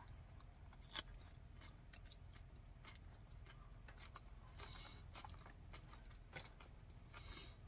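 Near silence with a few faint clicks of a fork against a plastic salad container and soft chewing of salad.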